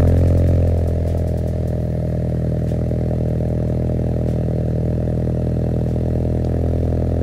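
Ford Mustang engine idling through its exhaust, a low, even rumble that is loudest in the first second and then holds steady.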